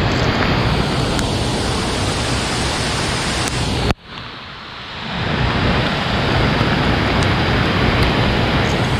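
Steady rushing noise of rain and running water. It cuts out abruptly about four seconds in, then builds back up over the next second.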